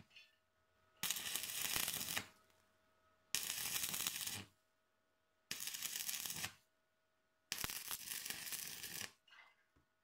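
Stick (MMA) arc welding on a steel mower cutter bar: four short bursts of arc crackle, each about a second long, with pauses of about a second between them, as a plate is tacked on in short runs.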